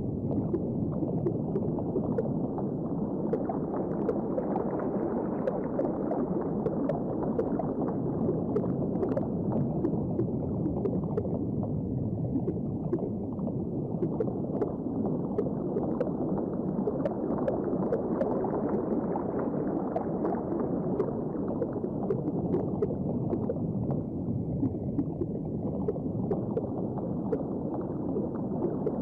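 Steady, low gurgling water noise, like bubbling water heard underwater, with faint scattered ticks.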